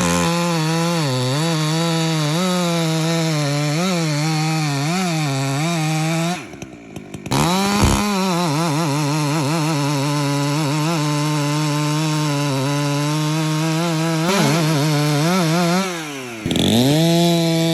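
Husqvarna two-stroke chainsaw cutting an oak log at full throttle, its pitch wavering as the chain bites into the wood. About six seconds in it drops briefly towards idle, then revs back up into the cut, and it dips and revs up again near the end.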